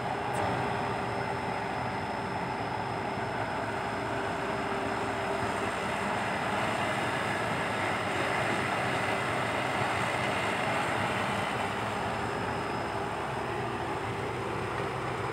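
Komatsu PC120-5 hydraulic excavator's diesel engine running steadily under load while it digs and loads soil, with a steady whine over the engine noise.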